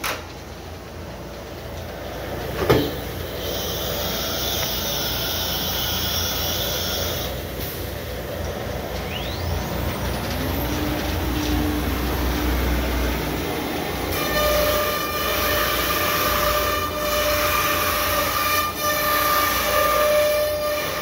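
CNC router working: a sharp click about three seconds in and a few seconds of hiss, then the spindle rises in pitch as it spins up about halfway through. In the last third the router bit cuts into the board with a steady high whine.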